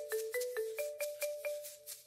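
Background music: a melody of quick mallet-struck notes, marimba-like, about four or five a second, thinning out near the end.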